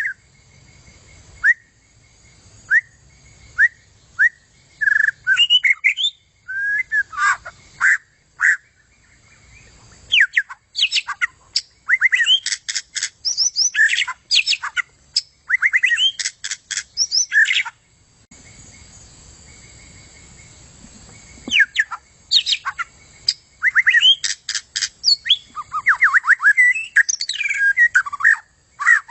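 A white-rumped shama (murai hutan) singing: varied phrases of clear rising and falling whistles broken up by rapid chattering note series. The song pauses for about three seconds a little past the middle, then resumes.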